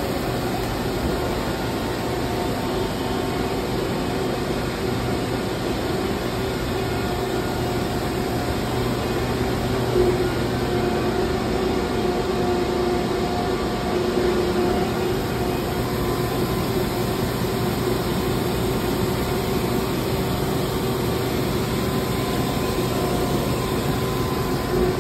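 Steady hum of powered industrial machinery in a machine shop: an even drone carrying a few steady tones, with one brief knock about ten seconds in.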